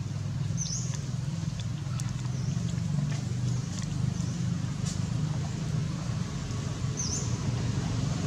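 A steady low hum runs throughout, like a distant engine or traffic drone. A few short, high chirps sound over it, about a second in and again near the end, with a couple of faint clicks.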